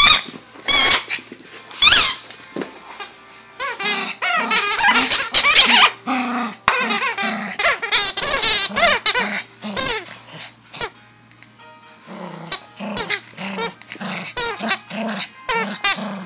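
A Yorkshire terrier biting and chewing a plush squeaky toy, squeezing out runs of quick, high-pitched squeaks over and over.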